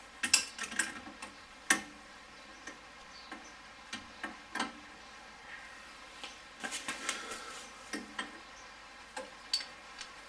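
Scattered sharp metallic clicks and knocks of hand tools being handled and fitted to a car's CV joint bolts, irregular and a second or more apart, with a small cluster about two-thirds of the way through.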